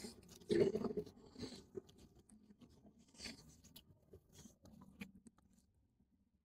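Faint scuffs and rustles of a handheld phone being moved about and brushed against clothing, a few short irregular bursts, dropping to near silence near the end.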